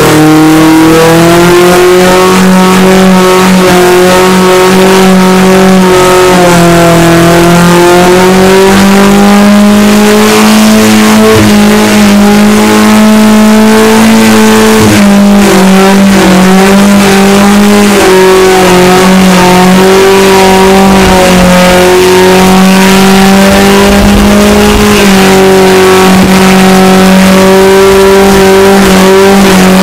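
Loud four-cylinder engine of a 1990 Mazda Miata with a 1.8-litre engine swap, held at high revs during a long burnout. The revs waver slightly up and down every few seconds while the rear tyres spin in smoke.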